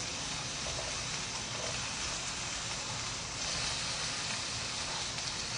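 Pork neck and pork belly sizzling in a frying pan: a steady hiss that grows a little brighter about three and a half seconds in.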